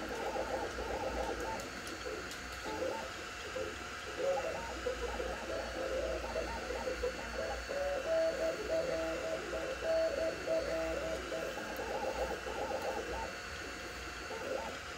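Stepper motors of a Two Trees Sapphire Plus 3D printer singing as the print head makes fast moves at 130 mm/s: short tones that jump in pitch every fraction of a second, over a steady fan hiss.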